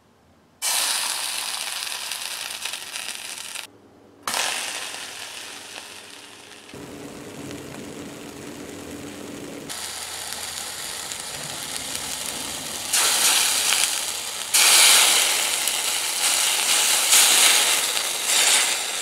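Water sizzling and hissing in a hot frying pan heated by tea lights. The hiss breaks off and restarts abruptly several times and grows louder over the last few seconds.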